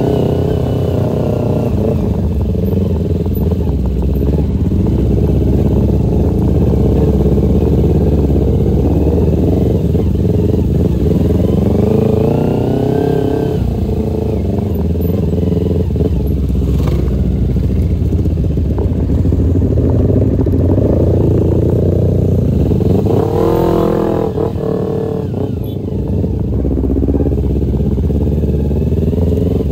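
Motorcycle engine running on the move, with a steady low rumble. The engine note rises and falls about twelve seconds in and again, more strongly, about 24 seconds in.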